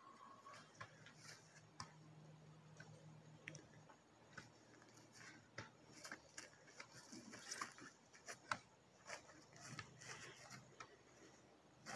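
Near silence: faint background with scattered soft clicks at irregular times and a faint low hum.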